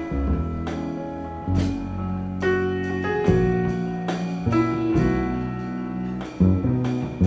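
Live jazz piano playing chords and a melody line, with double bass and a drum kit accompanying.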